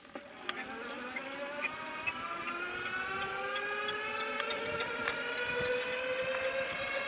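Bicycle rear wheel making a whining noise that starts about half a second in and rises slowly and steadily in pitch, with a light tick about twice a second.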